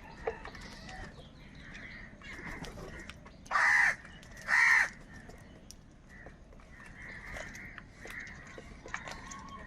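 Crows cawing: two loud, harsh caws about a second apart near the middle, over a steady background of fainter calls from many crows.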